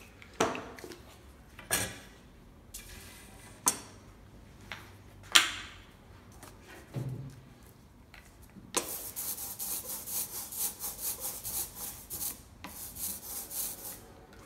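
A few short knocks and clicks as tools and the plate are set down, then, about nine seconds in, an ink roller (brayer) rolling tacky black relief ink back and forth in quick, even strokes, a rhythmic sticky rubbing hiss that stops shortly before the end.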